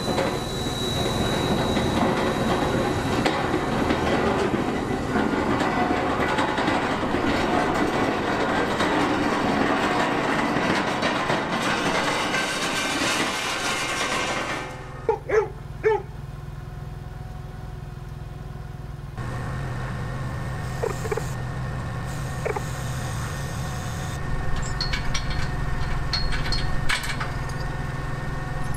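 A tow vehicle pulls an empty flatbed trailer out from under a load held up on a forklift: its engine runs and the trailer rattles, and the sound stops suddenly about halfway. After a quieter stretch with a few short squeaks, an engine hums steadily, with light clinks near the end.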